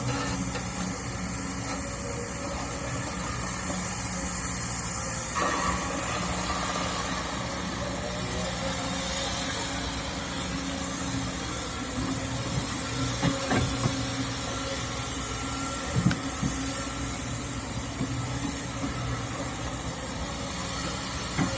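Kobelco SK200-8 excavator's diesel engine running steadily under a constant hiss, with a few sharp knocks in the second half.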